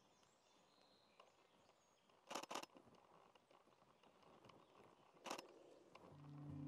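Camera shutter firing on a hoverfly: a quick burst of about three clicks some two seconds in, then one more click about five seconds in, over near silence. Music fades in near the end.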